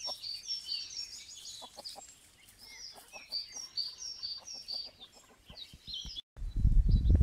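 Chickens clucking softly with short, low clucks while foraging, under a continuous chorus of small songbirds chirping and trilling high above. Near the end the sound cuts off sharply, and a loud low rumble follows.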